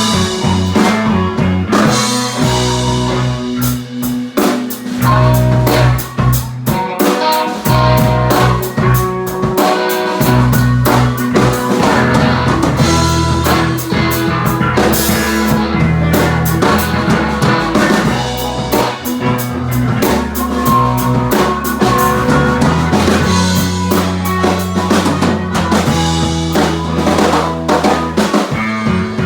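A band playing a blues-rock song live: a drum kit with rimshots keeps a steady beat under guitar and a bass line that shifts between held low notes.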